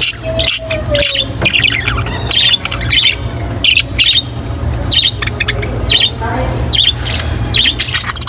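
Budgerigars chirping and squawking, many short calls overlapping in quick succession. A steady low hum runs underneath.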